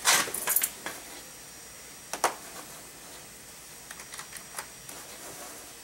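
Clicks and rattles from a computer mouse and its cable being handled while it is plugged in and tried out: a loud clatter in the first second, one sharp click about two seconds in, and a few lighter clicks near the end.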